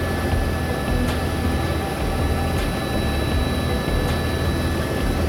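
Helicopter in cruising flight heard from inside the cabin: a steady rotor and engine drone with a rough low throb and a faint steady high whine.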